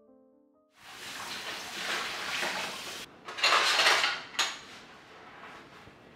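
Dishes being washed by hand in a stainless steel kitchen sink: a rushing noise of sponge scrubbing and water that starts about a second in and comes in swells, loudest a little past the middle, with a brief clatter.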